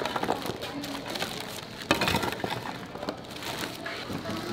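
A thin plastic bag crinkling while crunchy puffed-rice snack clusters are scooped into it and rattle against each other, with a louder rustle about two seconds in.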